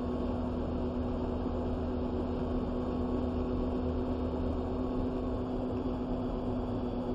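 Steady road and engine noise inside a moving vehicle's cab, with a constant low drone.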